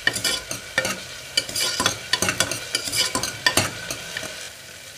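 Spatula scraping and tapping against a pressure cooker as chopped tomato and onion are stirred and sautéed in hot oil, with a light sizzle of frying underneath. The stirring strokes thin out and stop near the end, leaving the sizzle.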